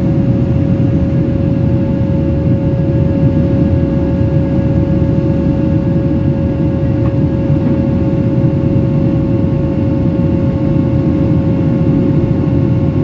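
Cabin noise of a Boeing 737-800 climbing after takeoff: its CFM56-7B jet engines and the airflow give a steady low rumble, with one constant whine over it.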